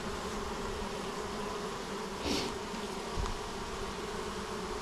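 Honeybees buzzing steadily around an open hive, a constant hum. A short hiss comes about two seconds in and a soft knock a second later.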